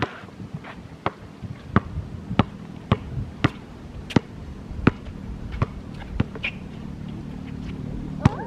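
Basketball dribbled on a hard outdoor court: sharp bounces about every two-thirds of a second, pausing for a couple of seconds near the end before one last bounce.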